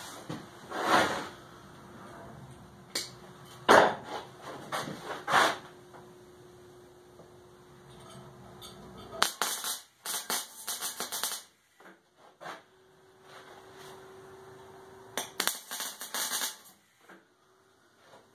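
Electric arc welding on steel: two short spells of crackling arc, tack welds, about nine seconds in and again about fifteen seconds in. Before them come a few knocks from handling the welding lead and the work, and a faint steady hum runs between the welds.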